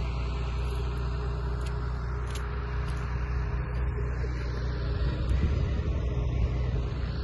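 An engine running steadily, a low even hum with no revving.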